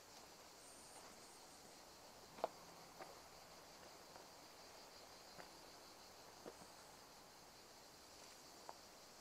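Faint, steady high chirring of insects, with a few short soft clicks scattered through it, the sharpest about two and a half seconds in.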